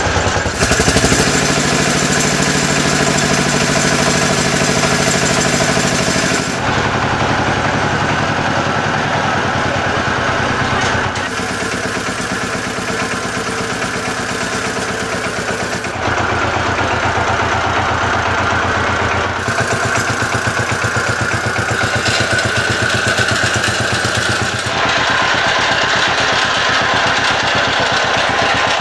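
Engine of a ploughing machine running steadily, with an even fast chugging, in several stretches whose tone changes abruptly from one to the next.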